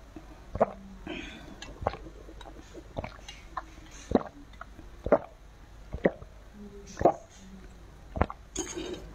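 Sipping a drink through a plastic straw and swallowing, close to a clip-on microphone: short wet sips and gulps come about once a second.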